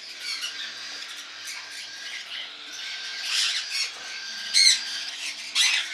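Hungry baby cockatiel chicks giving food-begging calls: a run of short, harsh squawks, with a louder call about two-thirds of the way through and more near the end.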